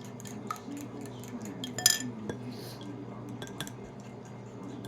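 Kitchen utensils clicking and clinking against dishes and pans, a string of light taps with one sharp ringing clink about two seconds in.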